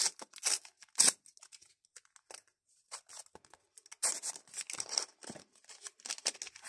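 Wrapper of a Panini Adrenalyn XL trading card pack being torn open and crinkled as the cards are pulled out, in short scattered rustles and crackles, bunched near the start and again about four seconds in.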